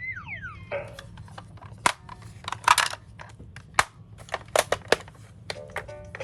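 Toy mini cars clattering and knocking as they are handled and rolled, with a few louder rattles. A short falling electronic tone sounds right at the start, and a toy's pulsing electronic sound starts near the end.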